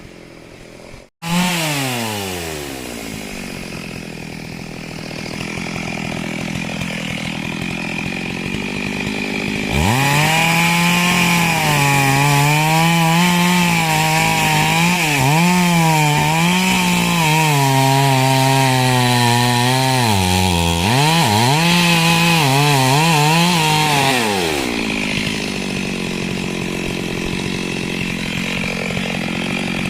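Chainsaw engine running. A little after a second in, it starts high and winds down. About ten seconds in, it runs at high revs for some fifteen seconds, its pitch wavering and dipping as it cuts into wood. Near the end it drops back to a lower level.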